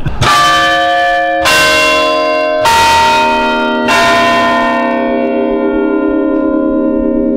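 Bronze tower chime bells struck four times, each a different note, about a second and a quarter apart, very loud at close range; the last bell is left ringing with a long, steady hum.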